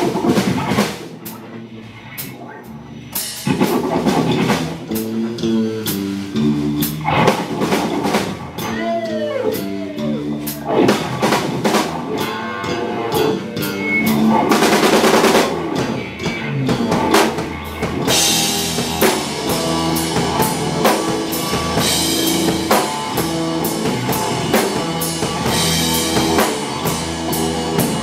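Live rock band playing: a fuzz-distorted electric guitar with Uni-Vibe, sustaining and bending notes, over a drum kit. The band is sparse at first, fills out about three seconds in, and thickens with heavy cymbal wash about eighteen seconds in.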